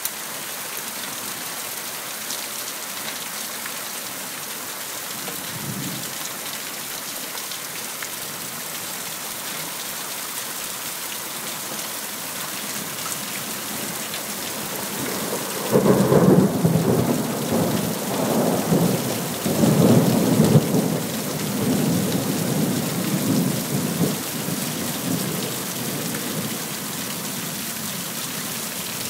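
Heavy rain hissing steadily, then about halfway through a very close thunderclap breaks in suddenly and rumbles on in several surges for around ten seconds before fading back under the rain. It is the loudest thunder the filmer has ever heard.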